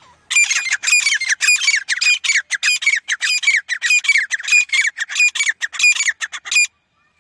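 Grey francolin (teetar) calling: a loud, fast run of harsh repeated notes, several a second, that stops suddenly near the end.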